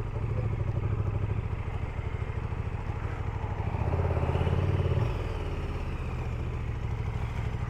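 KTM 1290 Super Duke GT's V-twin engine running at low revs while the motorcycle is ridden slowly. The engine note swells briefly about four seconds in, then settles back.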